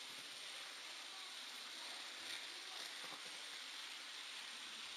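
H0 model train rolling along the track, heard as a steady hiss with a few faint ticks, picked up on board the moving model.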